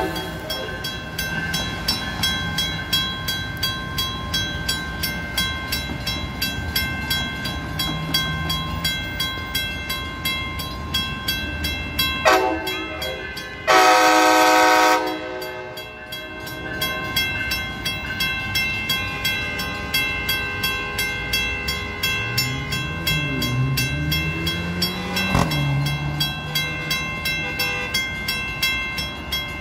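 Grade-crossing bell dinging rapidly and steadily as a Brightline Siemens Charger SCB-40 locomotive approaches the crossing. About twelve seconds in, the locomotive horn gives a short toot, then a louder blast of about a second and a half. Near the end a low engine note swings and rises in pitch.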